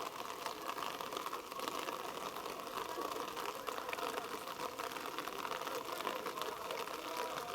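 Steady outdoor field ambience with faint, indistinct distant voices and calls mixed into a continuous hiss.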